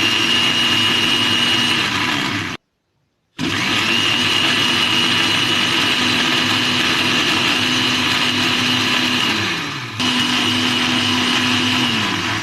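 Electric countertop blender running, blending fruit, herb and water into a juice. It stops about two and a half seconds in, then starts again after a short pause and runs on steadily.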